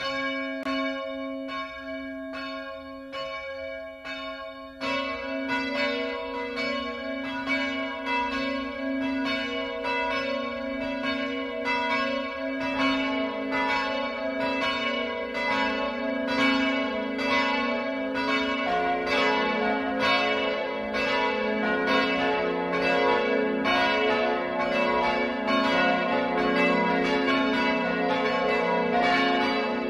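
Church bells ringing in the service: a single bell tolls at first, then further bells join in about five seconds in and twice more later, building into a full peal.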